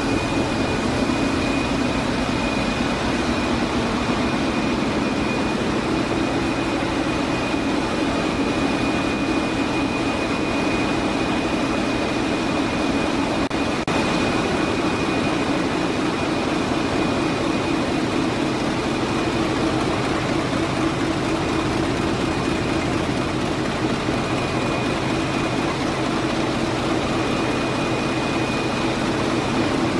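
Wärtsilä 8L50DF eight-cylinder inline four-stroke dual-fuel marine engine running at steady speed in a ship's engine room: a loud, continuous machine noise with a thin high whine on top.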